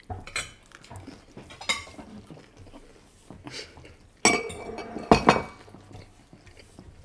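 Cutlery and metal serving tongs clinking against plates and bowls at the table. A few scattered clinks come first, then a louder run of clatter about four to five seconds in.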